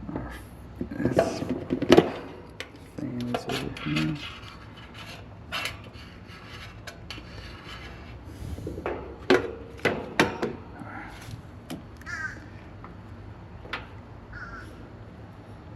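Scattered clicks, taps and scraping of hand tools and metal parts being handled at an air-conditioning unit during electrical checks, busiest in the first couple of seconds and again about nine to ten seconds in.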